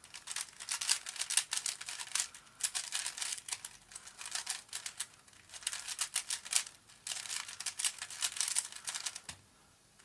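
A new YuLong 3x3 speed cube with a transparent blue plastic body being turned fast, its layers clicking and clacking in quick bursts. The plastic is dry, with no silicone lube, so it turns a little dry at speed. The turning stops near the end.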